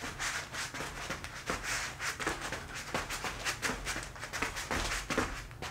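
Moccasined feet stepping, pivoting and spinning quickly on a foam play mat: a quick, uneven run of soft taps and scuffs.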